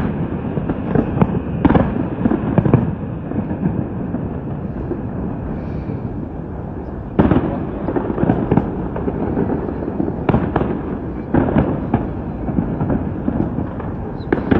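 Aerial fireworks display: a continuous run of bangs and crackles from shells bursting, with a sudden louder volley about halfway through and more clusters of bangs a few seconds later.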